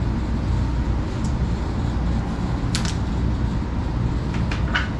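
Steady low machine hum, like a running ventilation fan, with a few light clicks about halfway through and near the end.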